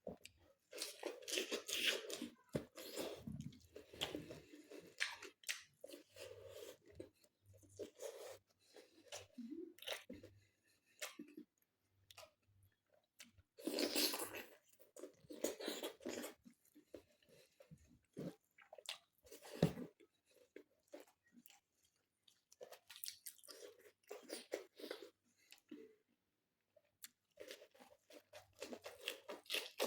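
A person chewing and crunching food in irregular bouts of bites, loudest about halfway through.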